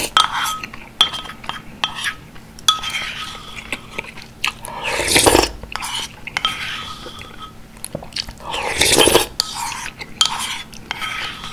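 A spoon clinks and scrapes against a white ceramic bowl as the last of the beef and pork rice soup is scooped up, and some taps leave the bowl ringing briefly. Close-miked eating sounds from the spoon come loudest about five and nine seconds in.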